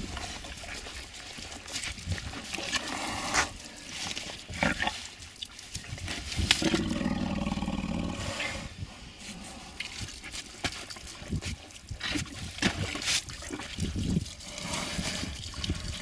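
An elephant wedged in a sand pit gives a low call lasting about two seconds, near the middle, while water is poured for it from a plastic bottle. Scattered sharp clicks sound throughout.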